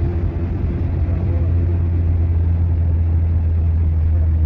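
Steady low drone of a vehicle's engine and road noise while driving, heard from inside the vehicle.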